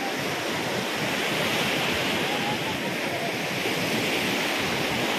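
Sea surf breaking and washing up a sandy shore in a steady rush, with wind on the microphone.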